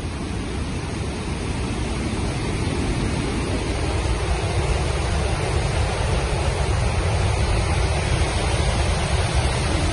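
Floodwater rushing through a dam's open spillway gates and churning in the river below: a steady, deep rushing noise that grows a little louder over the first few seconds. It is a large flood release with many gates open after heavy rain.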